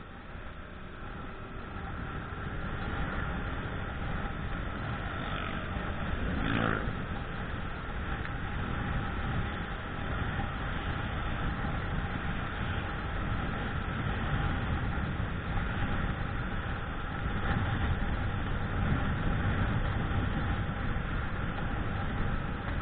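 Yamaha Jupiter Z CW single-cylinder four-stroke motorcycle running on the move through traffic, mixed with heavy wind rumble on the handlebar-mounted camera's microphone. It gets louder over the first few seconds as speed picks up, and a brief sweep passes about six seconds in.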